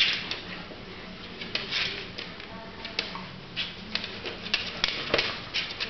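Corgis' claws clicking and scrabbling on a wooden floor, in irregular runs of quick taps as the dogs shuffle and turn about.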